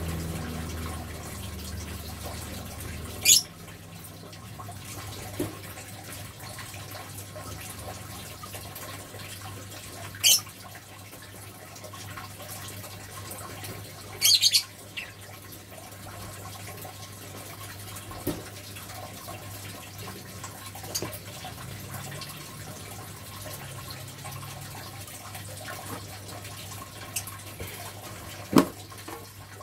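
A few sharp, brief metallic clinks from a wire cage as an Asian palm civet moves about inside it, spread out over a steady low background hum.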